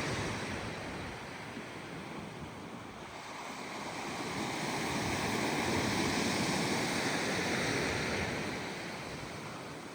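Gentle ocean waves washing onto a beach: one slow swell of surf that builds over a few seconds and recedes, over a steady wash of sea.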